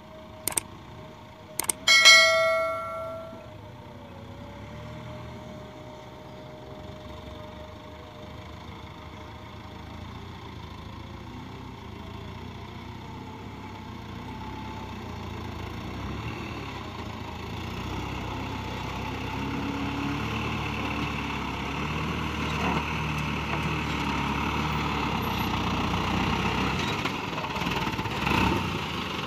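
A loaded light dump truck's engine running as the truck crawls up a rough dirt road, growing slowly louder as it approaches. Near the start come two clicks and a short bell ding from a subscribe-button animation.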